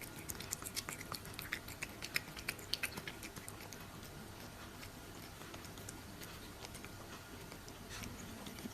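A cat eating wet canned cat food: a fast run of small chewing clicks, busiest in the first three seconds or so and sparser after that.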